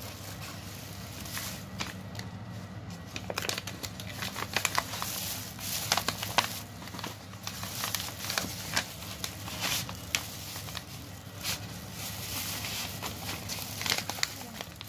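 Thin plastic bag and paper kebab wrapper crinkling and rustling as they are handled, in irregular crackles that come thickest in the middle and again near the end, over a faint low hum.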